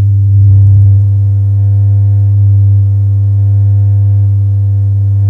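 Experimental drone music from a cassette tape: one loud, steady low electronic tone with fainter higher tones stacked above it, the upper ones coming in about half a second in.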